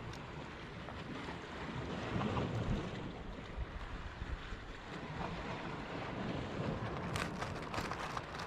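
Wind buffeting the microphone over the wash of the sea, with a few sharp clicks near the end.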